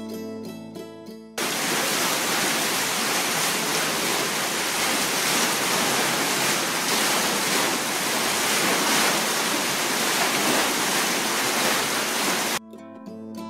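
Plucked-string music is cut off about a second in by a loud, steady rush of churning, foaming water in a small warm pool, which stops abruptly near the end as the music comes back.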